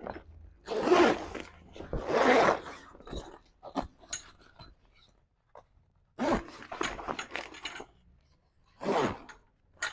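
Heavy canvas annex sidewall rustling and scraping as it is pulled and worked into place, in several separate bursts with short pauses between.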